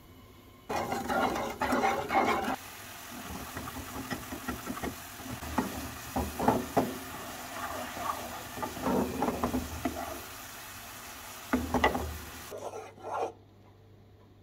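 A wooden spoon stirring sugar syrup in a metal saucepan over a gas flame, with irregular scraping strokes over the steady hiss of the bubbling syrup. It all stops abruptly about a second before the end.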